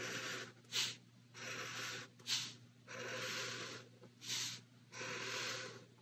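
Felt-tip marker drawing lines on sketchbook paper: faint scratchy strokes, four longer ones under a second each with three quick short strokes between them.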